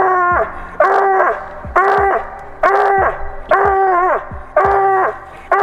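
Hound barking treed, reared up against a tree trunk: loud barks about one a second, each held on a steady pitch and then dropping at the end. This is the tree bark that tells the hunter game is up the tree.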